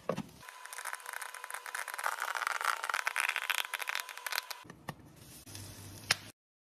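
Popcorn kernels popping in a covered frying pan: a dense, rapid crackle of pops against the glass lid that dies away about four and a half seconds in, followed by one sharp click near the end.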